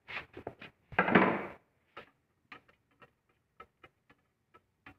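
Clicks and taps of a plastic engine side cover being handled and unfastened, with one louder, longer scrape about a second in, then scattered light ticks.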